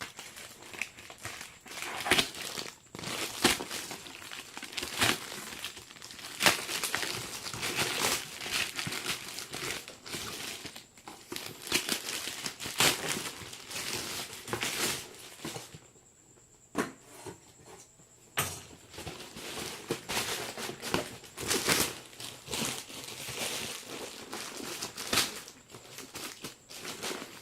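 Plastic packaging of a bicycle helmet crinkling and rustling as it is handled and pulled open, in irregular crackles and snaps, with a quieter lull a little past halfway.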